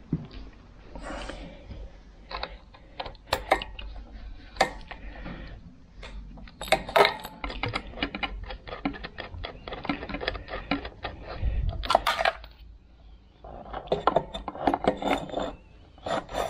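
Hand ratchet and socket clicking in quick runs as the petrol pump's 11 mm bolts are undone on a 2CV engine, with sharp metal clinks and taps of the tools against the engine.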